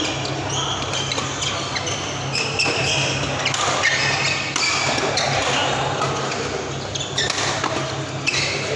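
Badminton doubles rally: rackets striking the shuttlecock with sharp hits, and court shoes squeaking on the synthetic court mat, echoing in a large hall.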